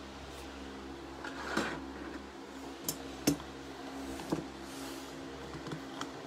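Several light clicks and taps of hard plastic card holders being set down and shuffled into a row on a tabletop, over a steady low hum.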